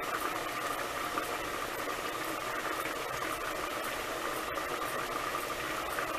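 Pot of broth with ham hocks at a rolling boil on a stovetop: a steady bubbling hiss with fine crackling pops.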